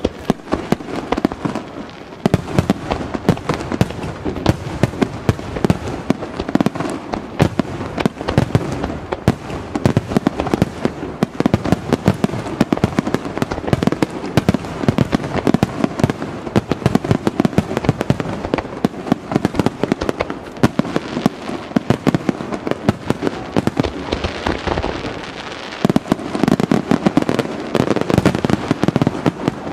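Aerial fireworks bursting in a dense, continuous barrage of rapid bangs and crackling, the booms echoing back from the surrounding mountains.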